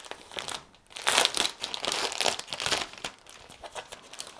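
Clear plastic packaging bag crinkling as it is handled and its sealed top flap is pulled open. The crinkling is loudest for a couple of seconds starting about a second in, then eases off.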